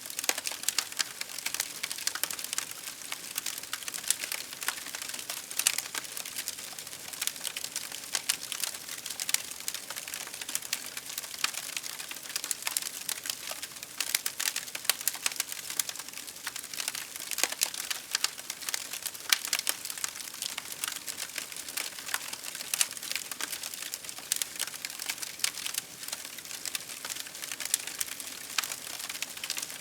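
Wood fire crackling steadily: dense, irregular sharp pops and snaps over a soft hiss of burning.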